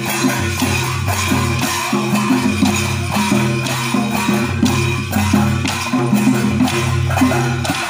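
Adivasi danda naach folk dance music: hand-played barrel drums beating a steady rhythm with jingling percussion, over a low, sustained melody that steps between a few notes.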